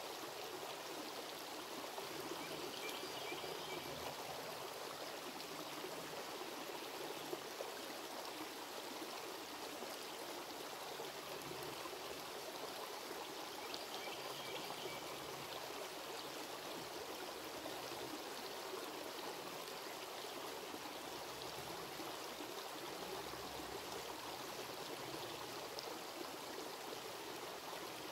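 Shallow creek water running steadily over rocks, an even trickling that does not change.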